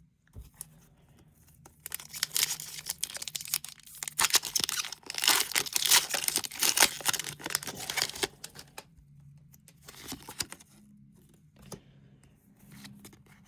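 Foil Pokémon booster pack wrapper being torn open and crinkled, a dense crackling for several seconds, then a few fainter crinkles.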